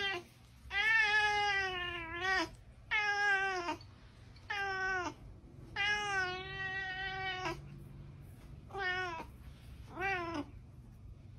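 Domestic cat meowing up at a person, six meows in a row with short gaps between them. The first and fourth meows are long and drawn out, the last two are short, and each one drops in pitch at its end.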